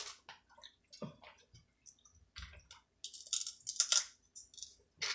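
Eating sounds close to the microphone: irregular mouth clicks, smacks and crunches of chewing, with a louder run of crunching about three to four seconds in.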